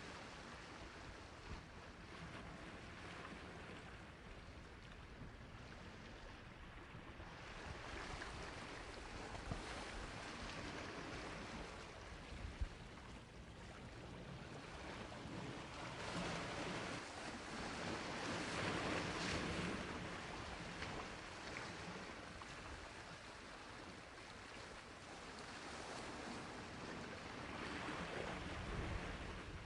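Sea waves washing onto the shore, a steady hiss that swells and ebbs, building to a peak around the middle and again near the end. A couple of brief ticks stand out partway through.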